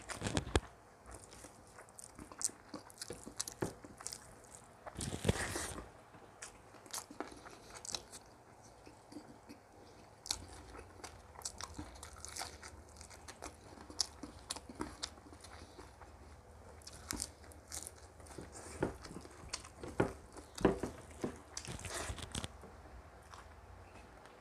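A person eating close to the microphone: crisp crunching bites and chewing, a run of short crunches with louder ones about five seconds in and again near the end.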